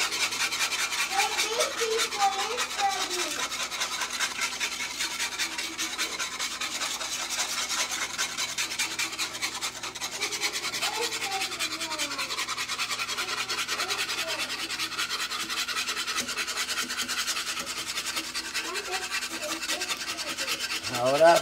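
Wire whisk scraping rapidly and steadily around the bottom of a cast iron skillet, beating a thick milk sausage gravy to work the flour lumps out.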